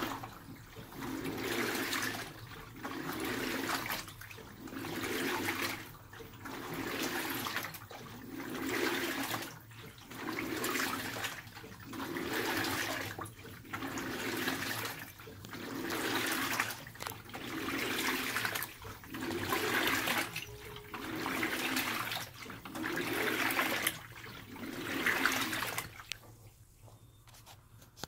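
LG Twin Wash Mini pedestal washer agitating a load of clothes in water. The drum turns back and forth in a steady rhythm of about one stroke every two seconds, each stroke a motor whir with water sloshing through the clothes. The strokes stop near the end.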